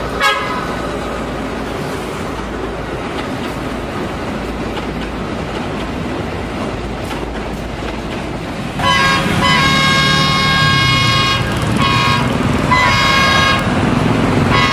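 Passenger train hauled by a BB 303 diesel locomotive running close by, a steady rumble with a brief horn toot at the start. About nine seconds in, the locomotive horn sounds a long blast, then two shorter ones.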